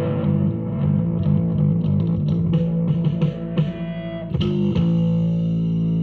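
Live instrumental music led by plucked guitar over bass: a run of short changing notes, then a sharp strike about two-thirds of the way in that opens a held chord.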